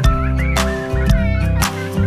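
Background music with sustained bass notes and sharp percussion hits, with a brief high warbling glide in the first half.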